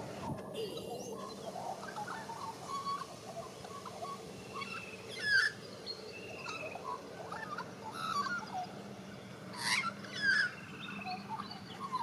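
White-backed Australian magpie warbling: a running stream of short chirps, twitters and whistled notes, with a louder downward-sweeping note about five seconds in and two more near the end.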